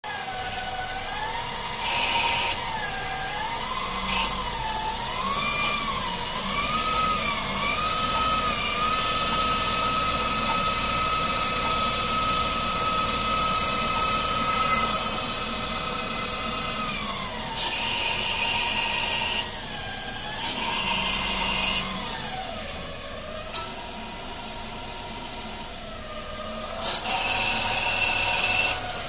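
Small CNC lathe with Teknic ClearPath axis motors machining a brass part. A motor whine keeps rising and falling in pitch, holds steady for several seconds and then drops. Loud bursts of hissing cutting noise come and go as the tool takes cuts, the loudest near the end.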